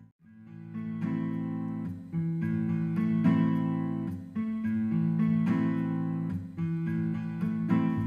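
Background music: a guitar playing plucked and strummed chords.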